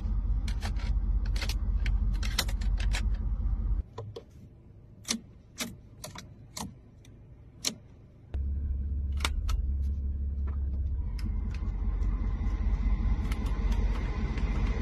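Sharp clicks of Mercedes-Benz dashboard controls, an air-vent thumbwheel and climate-control buttons, over a steady low rush of car-cabin background noise. The rush drops away for about four seconds, then returns and grows fuller toward the end, with a faint steady whine.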